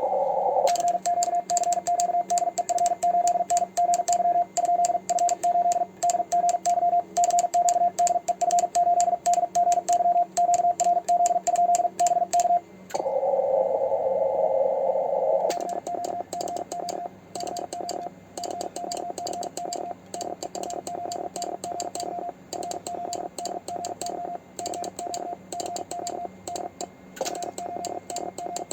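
Morse code keyed at about 45 words per minute on a homemade 3D-printed paddle: the radio's sidetone is a single steady beep chopped into very fast dits and dahs, with the paddle contacts clicking. About halfway through the tone breaks off for a couple of seconds of receiver hiss, then the fast keying resumes a little quieter.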